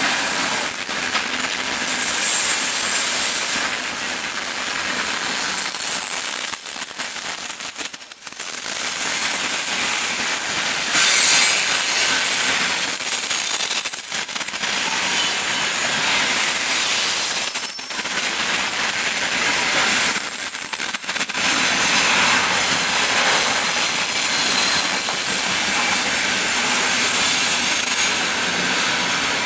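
Freight train of open-top coal gondola wagons rolling past close by, its steel wheels running on the rails with a steady, loud clatter that swells and dips a few times as the wagons go by.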